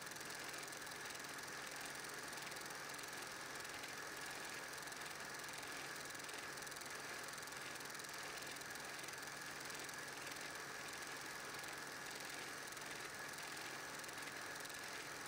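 8mm film projector running: a steady mechanical whirr with a faint, even pulse, under a hiss.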